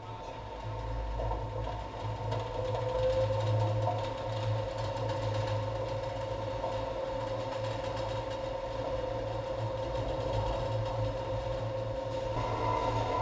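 Automatic car park's pallet lift machinery starting up abruptly and running with a steady electric motor hum and whine as it carries a car on its pallet. The whine rises slightly a couple of seconds in and shifts near the end.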